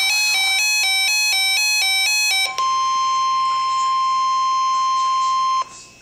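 NOAA weather radio receiver sounding an alert: electronic beeps alternate between two pitches, getting faster. About two and a half seconds in, they give way to a single steady weather-radio warning alarm tone, held for about three seconds before it cuts off suddenly. The alert signals a severe thunderstorm watch about to be read out.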